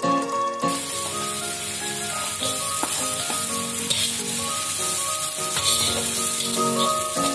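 Food frying in hot fat in a pan, a steady sizzle that starts suddenly just after the beginning, as if the ingredients have just gone in. Background music plays throughout.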